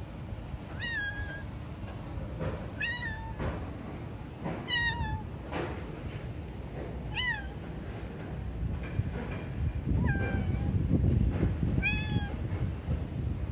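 Tabby cat meowing repeatedly: about six short meows, roughly two seconds apart, over a steady low background rumble.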